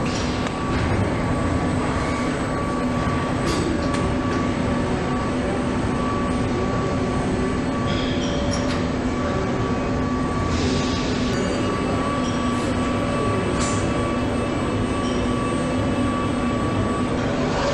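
Automated stator-winding machinery for an electric motor running: a steady mechanical hum with a faint high whine and a few light clicks.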